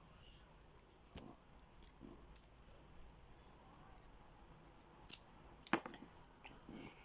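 Faint, scattered clicks and scratches of small plastic toy parts being handled and fitted together, the loudest click a little before the end.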